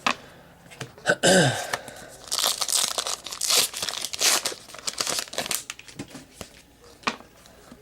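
A trading-card pack wrapper being torn open and crinkled for about three seconds. Before it, about a second in, comes a brief sound falling in pitch, and near the end there is a single click.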